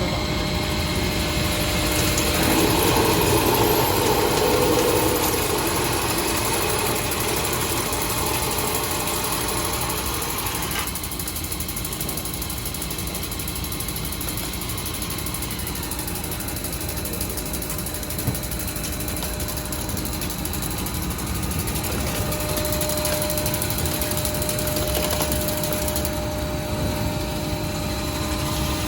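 CNC drilling special-purpose machine running, a steady mechanical hum with some steady tones in it. A louder, rougher passage starts about two seconds in and lasts around four seconds. The noise drops noticeably at about eleven seconds, and a steady higher tone comes in at about twenty-two seconds.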